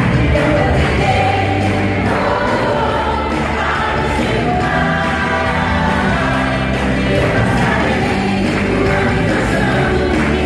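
Music with a choir singing, played loudly through a theatre's sound system for a ballet dance.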